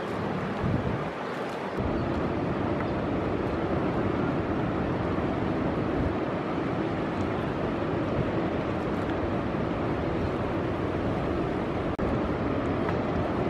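Steady rushing noise of surf breaking, with wind rumbling on the microphone; the low rumble gets stronger about two seconds in and drops out briefly near the end.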